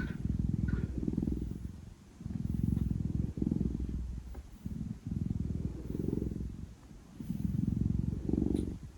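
Large domestic cat purring, a low fluttering purr that swells and fades with each breath in bouts of about a second.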